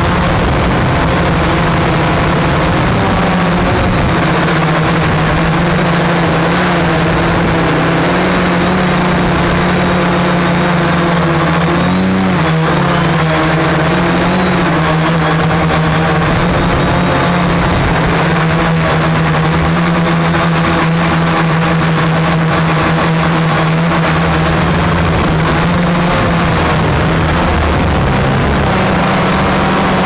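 Flexify multirotor drone's motors and propellers running, heard from its onboard camera: a steady droning hum whose pitch wavers and shifts as the motors work to hold the craft in strong wind, over a constant rush of air.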